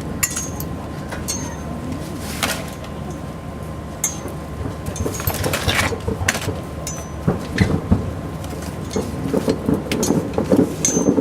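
Aerial fireworks bursting at a distance: a continuous low rumble of booms with sharp cracks scattered through, and a dense crackle building up near the end.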